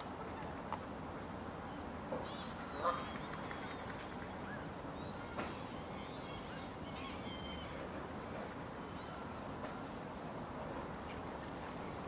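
Distant birds calling now and then: a few short calls scattered over a steady background hiss.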